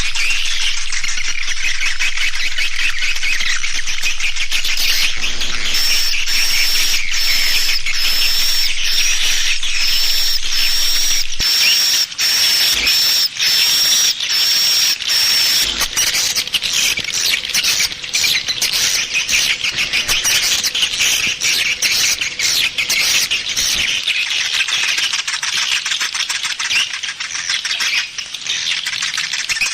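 Swiftlet lure call: a dense chorus of swiftlet twittering and clicking, with a high chirp repeated about twice a second from about six seconds in until around fifteen seconds.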